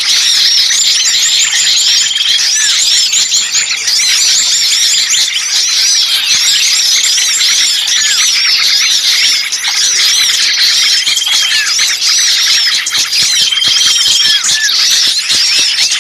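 A crowd of small songbirds calling agitatedly, a dense, unbroken mass of rapid high chirps and squeaky notes overlapping, with short level trills now and then. It is a bird-trapping lure recording of small birds making a noisy, alarmed racket, used to draw other birds in.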